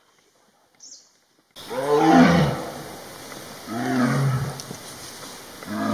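A big cat roaring three times in a series, about two seconds apart, each call rising and falling in pitch. The roars start suddenly about one and a half seconds in, after faint bush ambience.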